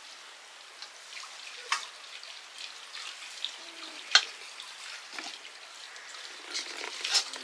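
Metal spatula scraping and knocking in a steel wok while serving cooked millet flour dhido onto steel plates, with a few sharp metallic clinks, the loudest about four seconds in.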